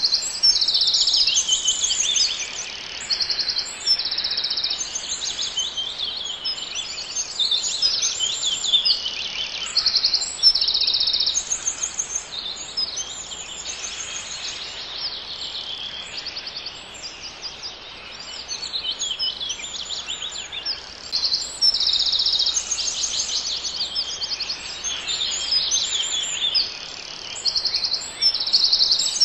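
Songbirds singing in woodland: high, rapid trilling phrases and chirps follow one another closely and overlap, over a faint steady background hiss.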